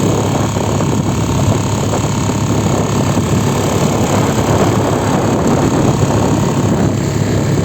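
Mercury 3.5 hp outboard motor running steadily under way, pushing a small boat along with a constant drone.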